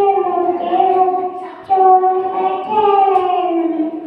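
A young girl singing into a microphone, holding long notes that slide gently down in pitch, in short phrases with brief breaths between them.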